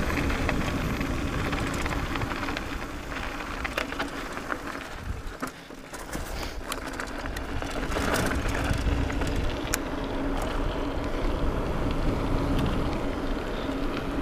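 Mountain bike descending a dirt road at speed: wind rushing over the camera microphone and the tyres rolling, with a steady tyre hum and scattered clicks and rattles from the bike and grit. It dips briefly about halfway through, then picks up again.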